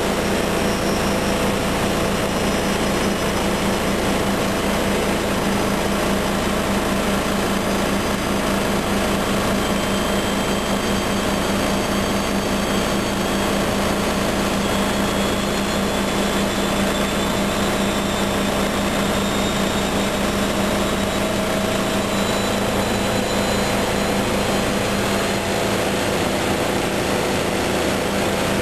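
Washing machine spinning: a steady loud mechanical rumble and hum, with a high motor whine slowly rising in pitch as the drum speeds up.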